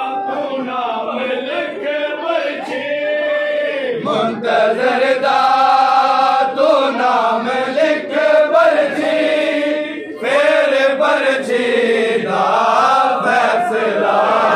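Men chanting a noha, a Shia mourning lament: a lead male voice sung in long melodic lines with others chanting along. There is a short break about ten seconds in.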